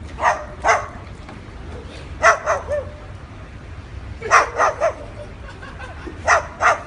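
Sulphur-crested cockatoo calling: short, sharp calls in groups of two or three, about every two seconds.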